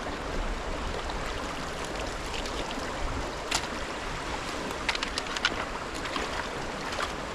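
Creek water flowing steadily, with a few light clicks or knocks in the middle.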